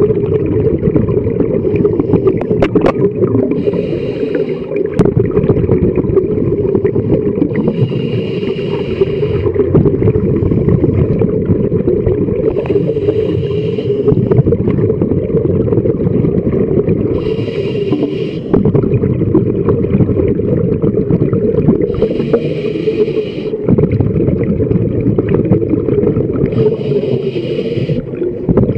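Scuba diver breathing through a regulator underwater: a hissing inhale comes about every four to five seconds, six times, over a steady low rumble of water against the housing.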